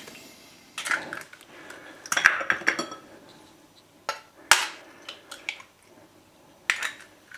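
Eggs being cracked against a mixing bowl and added, with clinks of the bowl and utensils: a handful of separate sharp knocks and clicks spread a second or two apart.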